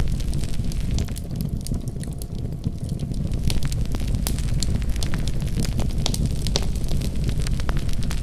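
Wood fire burning in a fireplace: a steady low rumble of flames with frequent sharp crackles and pops, which thin out briefly a second or so in.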